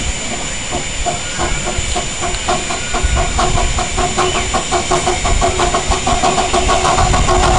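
Miniature 7¼-inch gauge steam locomotive working a train, its exhaust chuffing in quick regular beats, several a second. The chuffs grow louder as it approaches.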